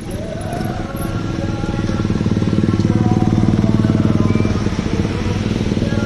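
Scooter and small-motorcycle engines running close by in heavy street traffic, getting louder toward the middle and then easing off a little.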